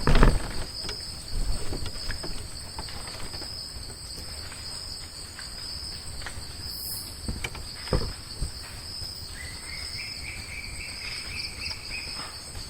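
Night insects chirring steadily at two high pitches, with a few knocks about eight seconds in. A second, lower buzzing call joins for about three seconds near the end.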